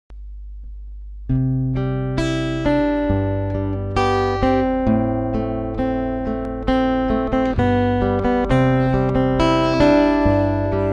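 Acoustic guitar playing a slow intro. A low hum comes first, then about a second in, picked notes begin ringing out one after another, each starting sharply and fading.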